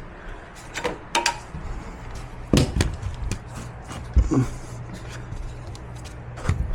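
Scattered clicks and a few knocks from hands working on a power wheelchair's frame and wiring, over a low steady hum.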